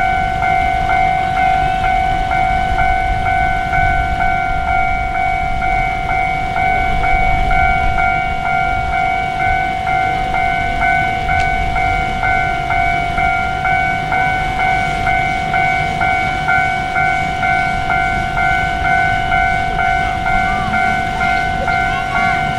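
DT668 steam locomotive running with its train, a steady rhythmic beat under a continuous high ringing tone.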